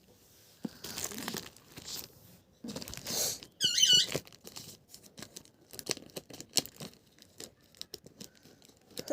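Sealed product packaging being worked open by hand: plastic and cardboard crinkling and tearing in irregular bursts and clicks, with a short high squeak about four seconds in.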